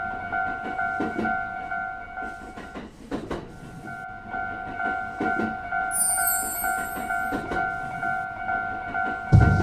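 Japanese level-crossing warning bell ringing its repeated "kan-kan" at about three strokes a second, with a short break about three seconds in, over the clatter of a passing train. A high whistle sounds for about a second and a half midway, and music with a heavy beat cuts in at the very end.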